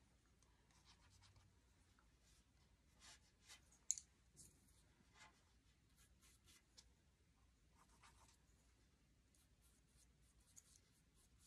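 Faint, scratchy strokes of a small paintbrush dry-brushing acrylic paint onto a painted board, with a brief sharp tick about four seconds in.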